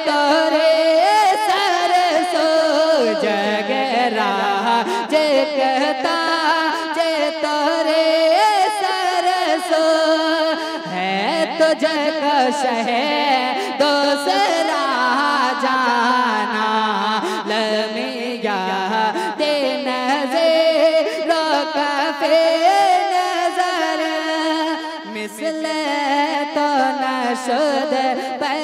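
Male voice singing a naat into a microphone, amplified, in long ornamented phrases with wavering, gliding pitch and held notes.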